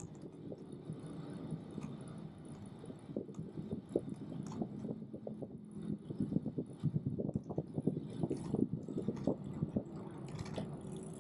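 Irregular clicks, knocks and rattles from a Brompton Electric folding bike being ridden, over a low rumble of riding. The knocking thickens from about six to ten seconds in.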